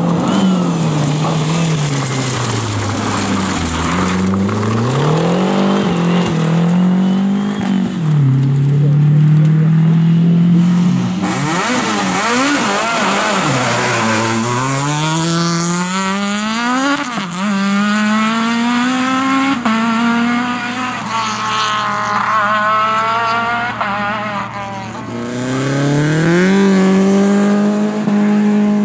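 Rally car engines revving hard as several cars drive past one after another, the pitch climbing through each gear and dropping at every gear change.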